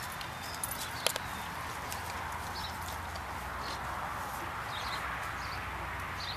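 Outdoor backyard ambience: a steady background hiss with faint bird chirps, and a couple of sharp clicks about a second in.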